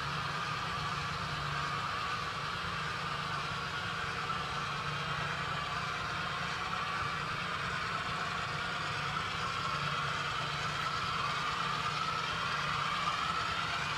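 Simulated diesel prime mover running from the onboard sound decoders of three Canadian National 38-2 wide-cab model locomotives as they pull a train of covered hoppers. The sound is a steady engine hum that gets a little louder near the end as the locomotives draw closer.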